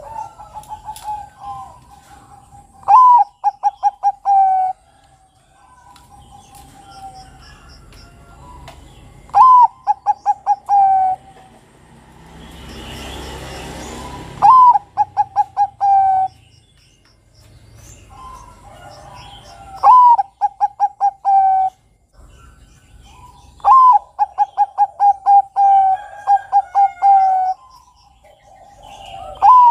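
A Bangkok-line perkutut (zebra dove) sings its cooing song in repeated bouts, about every five seconds. Each bout is a rising opening note followed by a quick run of short, even coos. Faint chirps of small birds and a brief hiss about halfway through lie underneath.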